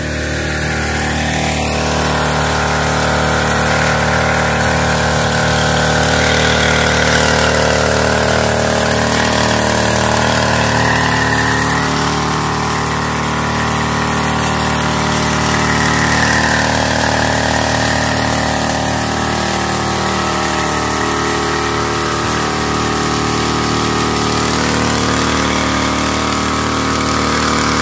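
Engine of a motorised knapsack power sprayer running steadily while the sprayer pumps a mist of spray out of its lance.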